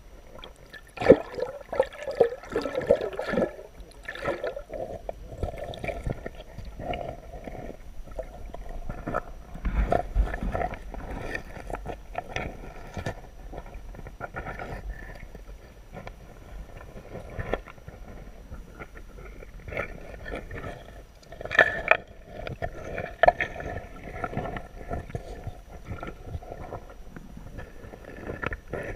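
Muffled underwater water movement: swishing and irregular knocks and bumps picked up by a camera held under the surface while a hand moves in the water beside it. The loudest knocks come about a second in and again about three-quarters of the way through.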